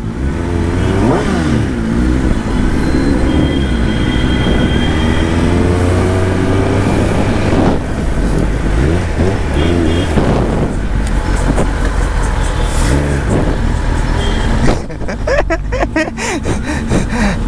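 Kawasaki ZX-10R's inline-four engine running on the move in traffic, its pitch rising and falling with the throttle, under steady wind and road noise.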